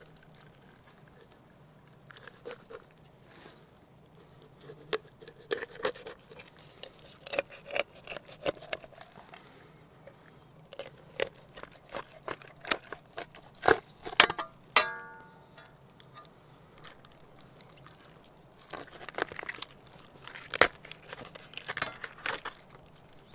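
Irregular crunches and sharp knocks from something being handled, in clusters, with a brief ringing note just after a knock about fifteen seconds in.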